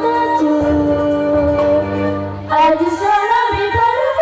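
Girls' choir singing, holding a long note that fades, then a new, louder phrase entering about two and a half seconds in.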